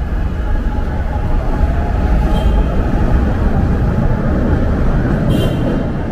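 Steady low rumble of a vehicle running, with two brief high-pitched squeals, about two and a half and five seconds in.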